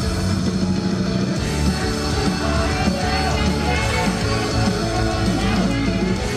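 Loud, rock-style J-pop idol song performed live, with a dense band sound and a driving beat.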